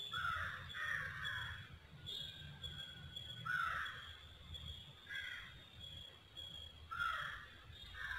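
A bird calling with about five short, harsh calls spread over several seconds.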